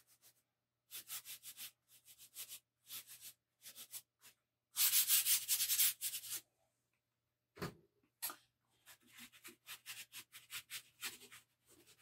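Artist's chalk scraping and rubbing on paper in short strokes, with fingers smudging it in. There is a longer, louder stretch of rubbing about five seconds in.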